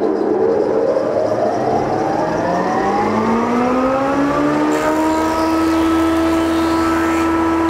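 Large old thickness planer switched on, its motor and cutterhead running up to speed with a rising whine that levels off about four and a half seconds in, then running steadily with no wood being fed.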